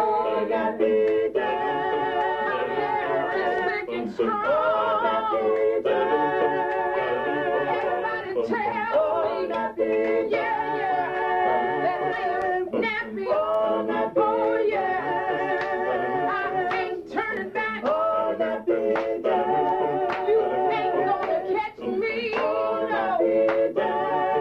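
A man and a woman singing a song together without accompaniment, in long held notes with short breaths between phrases.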